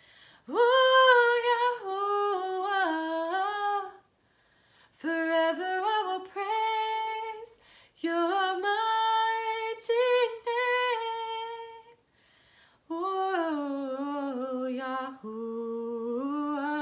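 A woman singing solo and unaccompanied in four long, sustained phrases with short breaks between them, the last phrase lower in pitch.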